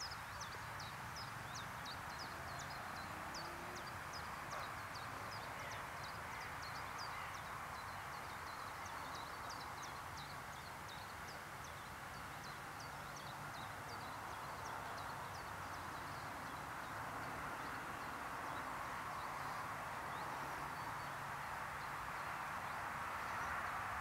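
Outdoor ambience of small birds chirping: many short, high, quickly falling chirps over a steady background hiss, thinning out after about seventeen seconds.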